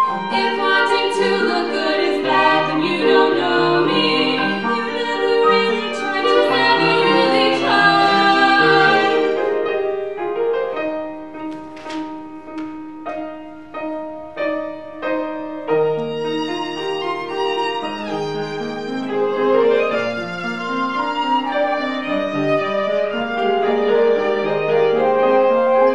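Live classical-style chamber music for violin, flute and piano with two female singers. About ten seconds in the texture thins to short, separate notes for several seconds before the fuller violin-led sound returns.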